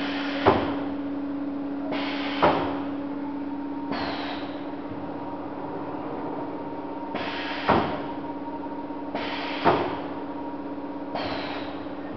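Starview PH6 six-station rotary machine cycling over a steady hum. Six short hissing strokes come about two seconds apart, with a longer gap in the middle, and four of them end in a sharp metallic clunk.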